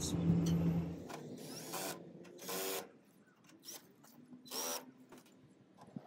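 Cordless drill/driver running in several short bursts, each a brief whine, the last rising in pitch: screws being driven to fasten the air conditioner condenser unit's cover back on.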